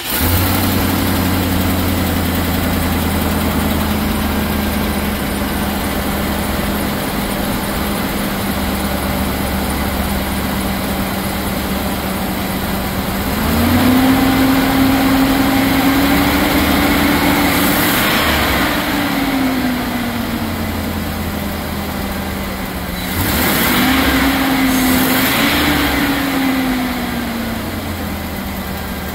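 A 2006 Chevrolet 3500's V8 engine idles steadily, heard from the open engine bay. About halfway through, it is revved up and held at raised speed for several seconds before settling back to idle. A few seconds later it is revved again for a shorter spell and drops back to idle.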